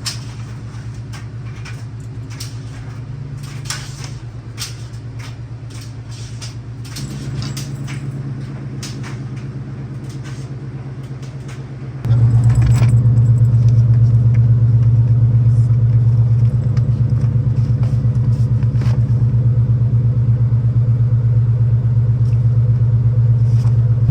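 A vehicle engine runs steadily, with short clinks and rattles like keys or gear being handled over it. About halfway through, the engine noise suddenly becomes much louder and stays that way.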